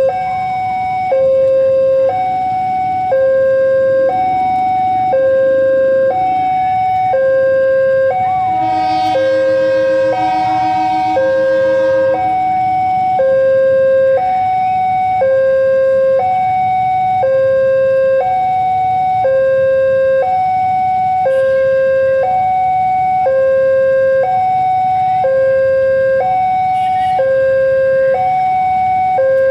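Level-crossing warning alarm sounding two alternating tones, switching about once a second, signalling an approaching train. About nine seconds in, a horn sounds for about three seconds.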